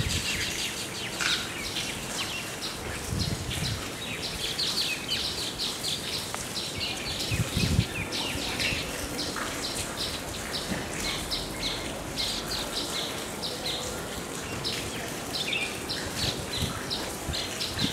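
Birds chirping in a steady chatter of short, high notes in quick succession, with two low thumps about three and seven and a half seconds in.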